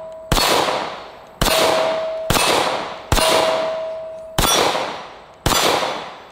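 Ruger-57 pistol firing 5.7×28mm rounds: six shots about a second apart, each trailing off in a long echo. Steel targets ring with a steady tone after several of the hits.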